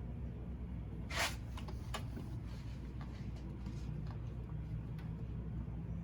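Quiet handling sounds from a cord being worked into the rubber gasket around a windshield: a short scraping rustle about a second in and a light click near two seconds, over a steady low hum.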